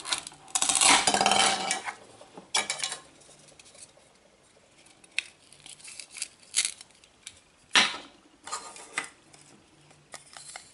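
Toy knife cutting apart a velcro-joined toy vegetable: several short raspy velcro rips, the longest about a second in, with sharp clicks of the knife and pieces on the cutting board, the loudest click near the end.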